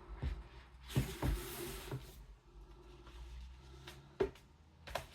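Handling of a vinyl box set's cardboard packaging and record sleeves: a few light knocks and taps, with a brief rustling slide about a second in.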